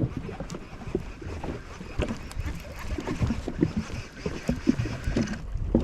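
Water sloshing and slapping around a jet ski on the open sea, with irregular short knocks and bumps throughout.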